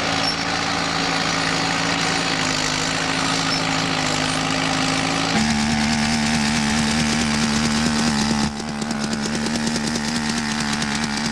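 A machine's engine runs steadily. About five seconds in it gives way to a jumping-jack rammer compactor running and tamping shale gravel fill, with rapid, regular pounding over its engine note.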